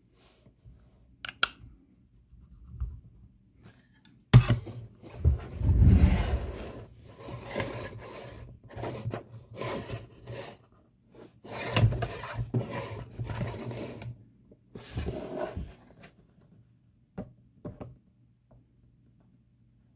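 Hands handling a plastic model airliner and its display stand: irregular rubbing and scraping of plastic, with a sharp knock about four seconds in. A few light clicks come near the end as the model is set on its stand.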